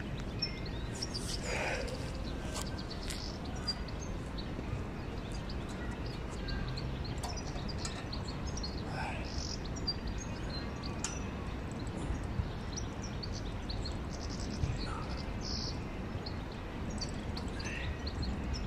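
Steady outdoor ambient noise with scattered faint bird chirps and a few light ticks.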